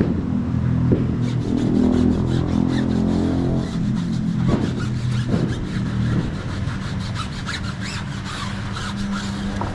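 Hand brushes scrubbing soapy car tyres and wheel rims in quick, repeated strokes, over a steady low machine hum.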